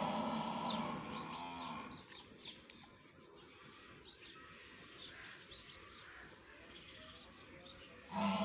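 Dairy cattle mooing: one long, low moo that ends about two seconds in, and another moo starting near the end.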